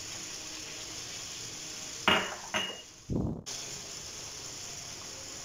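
Oil and halved tomatoes sizzling steadily in a karahi, with two ringing clinks of a small glass spice bowl about two seconds in as spice powder is tipped in, followed by a short dull thump.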